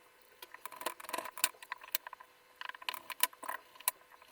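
Quick, irregular crackling and ticking of sticky, cut-off typewriter transfer ribbon film being pulled off the hands and bunched up. It comes in two flurries of about a second each.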